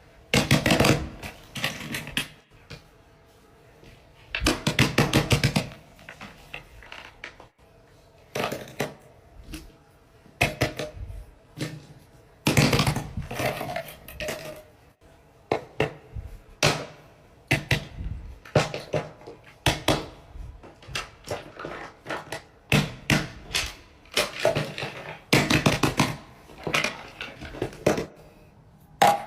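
Plastic fidget toys being handled, clicking, rattling and crinkling in irregular bursts of a second or two, with short pauses between.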